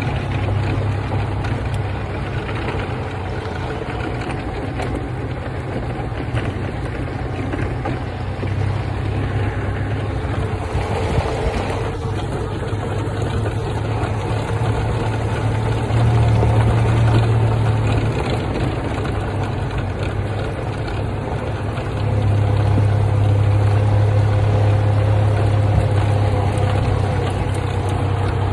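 Golf cart driving along, its engine running with a steady low hum. The hum gets louder for a couple of seconds a little past halfway, and again for the last quarter.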